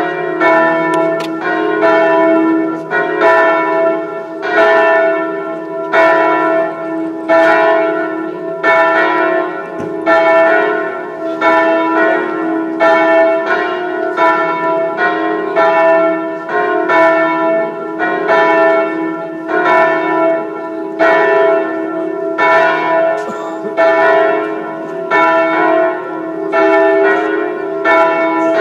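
Church bell tolling at a slow, even pace, a stroke about every second and a half, each stroke ringing on over the next: a funeral knell.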